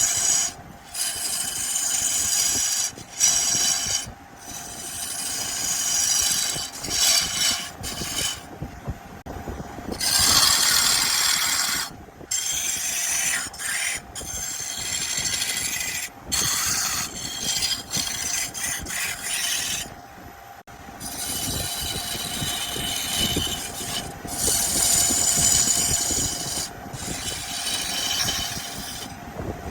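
Wood lathe running with its motor hum steady underneath, while a tool scrapes against the spinning wood. The hissing scrape stops and restarts many times as the tool comes off and goes back on the work.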